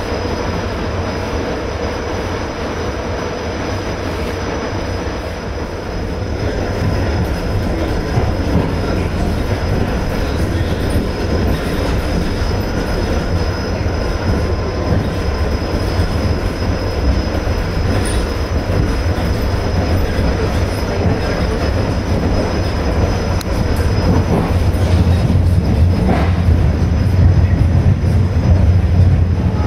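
ED4M electric suburban train in motion, heard from inside the carriage: steady running noise of wheels on rail and the train's running gear, growing gradually louder.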